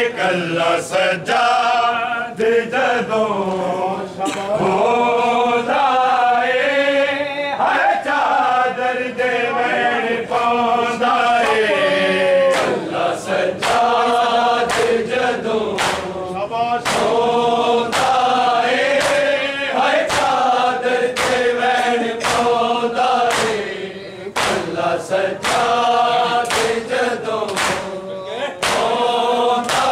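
Men's voices chanting a Punjabi noha, a Shia lament, in unison through a microphone, with sharp strikes recurring in time with the chant.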